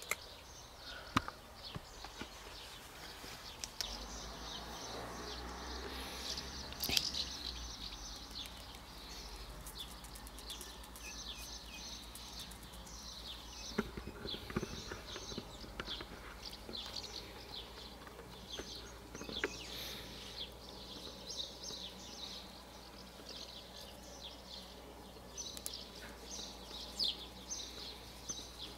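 Small birds chirping in the background: many short, high chirps at irregular intervals, with a few sharp clicks and a low steady hum underneath.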